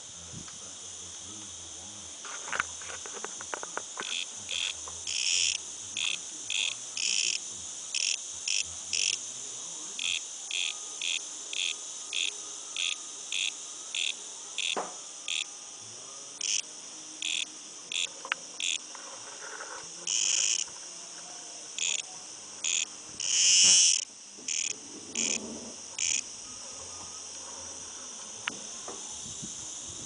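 Cicada singing: short buzzing pulses repeated about once or twice a second, with a few longer, louder bursts in the second half, over a steady high-pitched hiss. The pulses stop a few seconds before the end.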